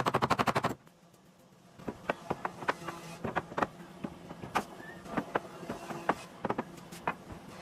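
Woodworking sounds: a quick rattling burst of about a dozen rapid knocks at the start, then after a short pause, scattered light knocks and clicks of wood being worked and handled.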